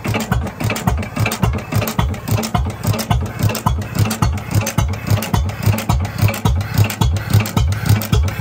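6 hp IHC Titan hit-and-miss engine running, with an even beat of about three to four strokes a second.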